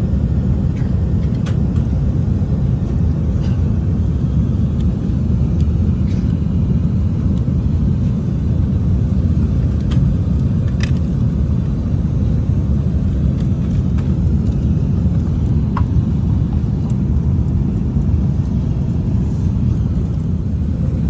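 Steady low rumble inside the cabin of an Airbus A380 at cruise altitude: engine and airflow noise with a few faint clicks.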